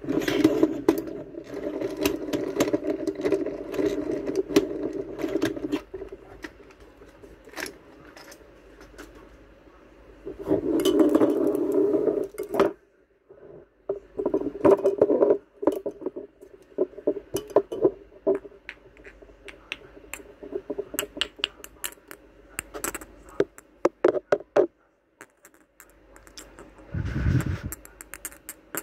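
Small hard items, a translucent cup and little figurines, handled and set down on a tabletop: many light clinks, taps and scrapes, busiest near the start and again around the middle.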